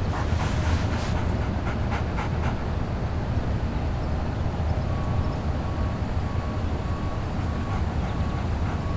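Steady low rumble with rustling and scuffing from a camera strapped to a moving dog, and from about five seconds in a faint short beep repeating about every half second.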